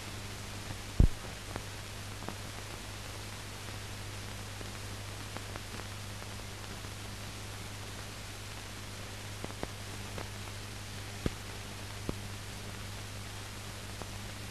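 Steady hiss and a low hum from the blank soundtrack of a silent archive film, with scattered clicks and pops; the loudest is a sharp pop about a second in.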